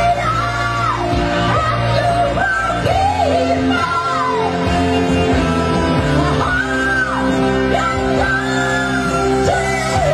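Two women singing high, shrill held notes through a PA over a live band. Each long note slides down at its end, one after another every couple of seconds.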